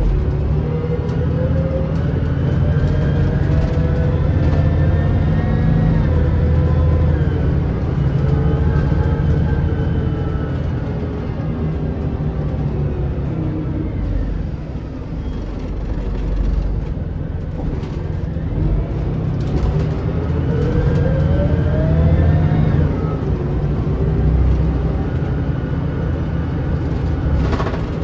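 2005 Scania L94UB bus diesel engine heard from inside the cabin, with a steady rumble and a whine that rises as the bus accelerates. The whine drops about six seconds in, then climbs again in a second acceleration around two-thirds of the way through.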